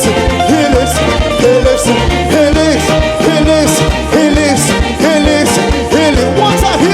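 African gospel praise band playing upbeat music: a steady drum beat with regular cymbal hits under a lead melody line that bends and slides in pitch.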